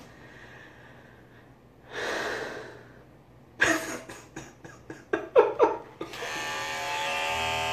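A loud breath, then a run of short breathy laughs; about six seconds in, electric hair clippers switch on and buzz steadily.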